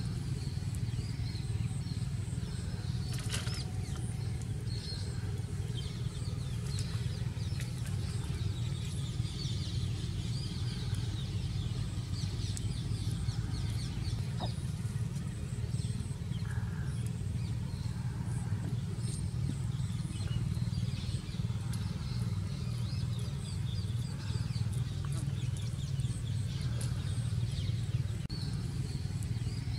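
Outdoor ambience: a steady low rumble with faint high chirping of small birds scattered throughout, and a single light click about three seconds in.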